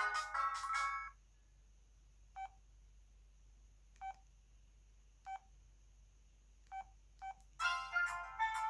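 O2 Ice mobile phone playing a polyphonic ringtone melody that stops about a second in. Five short key beeps follow, spaced a second or more apart, as the handset steps through its ringtone list. Another ringtone melody starts near the end.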